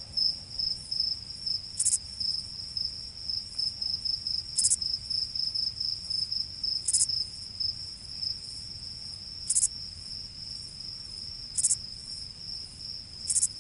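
Crickets chirping in a fast, steady pulse, with a brief, higher-pitched buzz repeating every two to three seconds.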